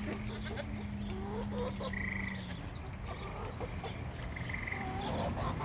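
Chickens clucking, with a short high call repeating about every two seconds, over a steady low hum that stops about halfway through.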